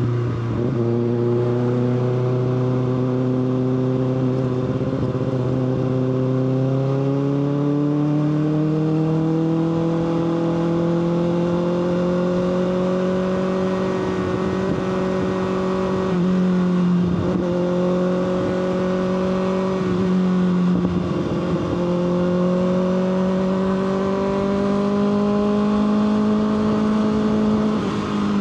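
Kawasaki ZX-6R's inline-four engine running steadily at mid revs under way, its pitch climbing gradually over several seconds and then holding, with a few brief dips as the throttle eases.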